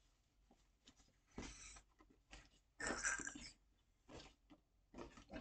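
A quilted fabric zipper bag being handled while its stuck zipper is worked at: a few short rustling scrapes, the loudest about three seconds in.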